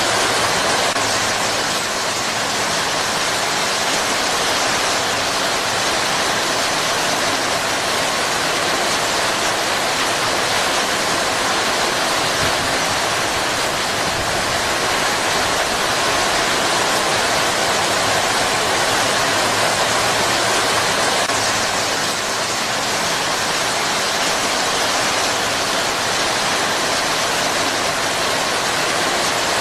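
Heavy rain falling steadily on palm foliage, an even, unbroken hiss.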